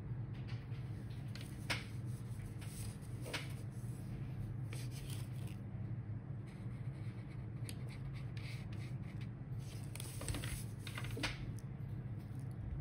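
Felt-tip highlighter (Pelikan Textmarker) rubbing across paper in several short scratchy strokes while tracing the lines of a printed plan, over a steady low hum.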